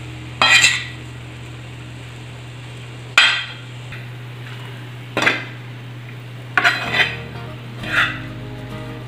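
Spatula scraping and knocking against a flat tawa griddle while stirring and turning spiced rice, in about six separate strokes a second or two apart.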